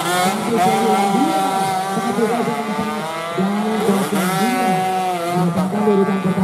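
Several two-stroke 116cc underbone racing motorcycles at full throttle, their engines' pitch rising and dropping again and again as they rev through the gears.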